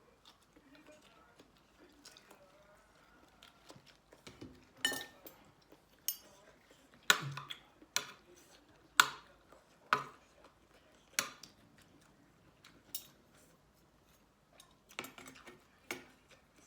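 Cutlery clinking against a dish while eating, a series of sharp separate clinks, most of them in the middle and a few more near the end.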